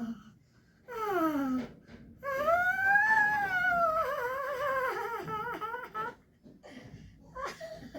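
A person making a silly whining voice sound for a funny-sounds game: a short falling whine, then a long wavering wail that rises and slowly sinks over about four seconds.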